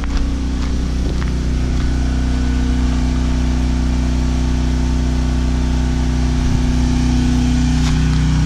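A 7000-running-watt portable gasoline generator engine running steadily under load, growing a little louder near the end.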